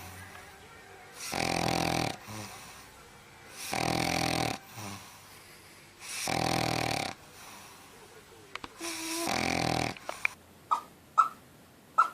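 Dog snoring in its sleep: four long snores about two and a half seconds apart. Near the end come a few short, sharp clicks.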